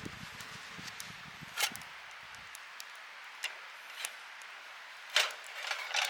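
Wood campfire crackling with a faint steady hiss, broken by irregular sharp snaps and pops, the loudest about five seconds in. Background music fades out in the first couple of seconds.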